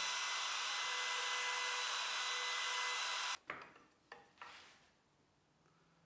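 Plunge router running steadily with a whine, its chamfer bit cutting the edges of drilled holes in plywood. The sound stops abruptly about three seconds in, followed by a few faint taps and scratches.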